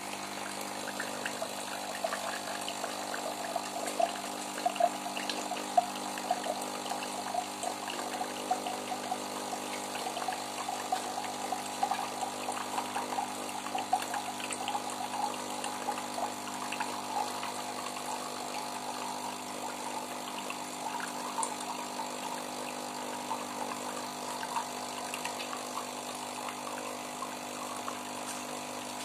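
Nescafé Dolce Gusto capsule machine dispensing cold water: its pump hums steadily while a thin stream splashes into a glass, with a few louder splashes about five seconds in. The pump runs evenly, as a machine working properly does.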